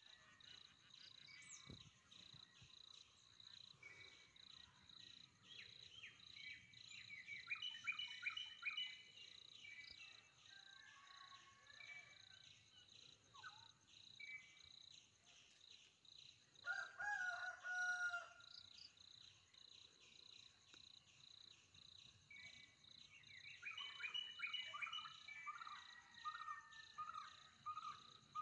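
Faint forest ambience: a steady, rapidly pulsing high insect drone, with birds chirping in two bursts and a short lower call in between. Near the end, one bird repeats a single note about three times a second.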